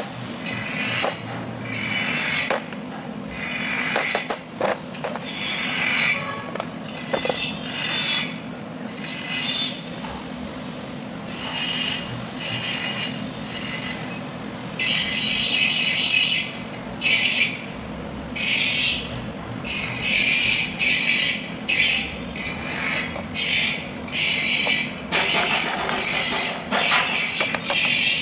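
Bearing and steel parts on the splined shaft of a Kubota B1502 front axle housing clinking and scraping, with scattered sharp knocks as the bearing is worked down the shaft with a wooden block.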